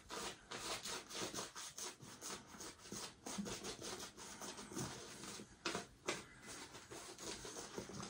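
Soft synthetic shaving brush scrubbing shaving-soap lather, quick rhythmic brushing strokes, several a second.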